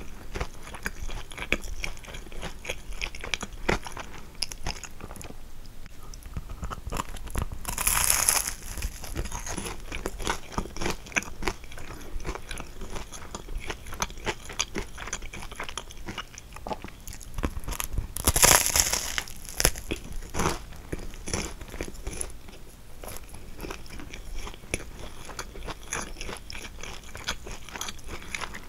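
Close-miked biting and chewing of a kouign-amann, its caramelized, crisp sugar crust crunching between dense small chewing clicks. Two louder crunches stand out, about a third of the way in and just past the middle.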